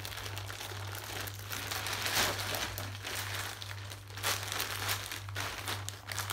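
Thin plastic courier bags crinkling and rustling as they are pulled open and rummaged by hand, loud and soft by turns, louder about two seconds in and again near the end.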